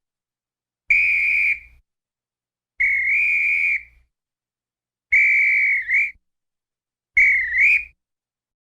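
A high whistle blown four times in short, separate blasts of about a second each, the last two dipping in pitch and flicking up again at the end.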